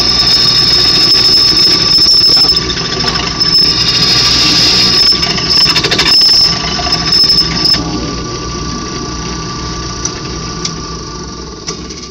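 A steel-cutting twist drill boring into a thick steel plate on a drill press, squealing with a steady high tone as it cuts. About eight seconds in the squeal stops and only the quieter running of the press goes on as the bit is lifted clear.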